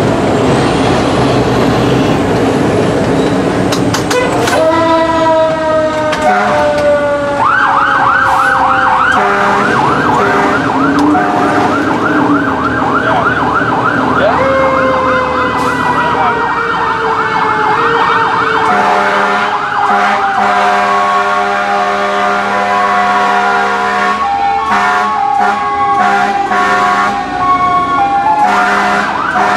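Fire truck siren heard from inside the cab. After a few seconds of engine and road rumble it starts, sweeping slowly down in pitch and switching to a fast warbling yelp. A second slow fall follows, then a steady blaring multi-tone sound through the second half, with the yelp coming back at the very end.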